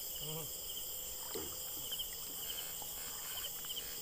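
Night insect chorus: crickets chirping in short repeated pulses over a steady high hum. A brief low voice sound comes just after the start, and a few faint knocks follow.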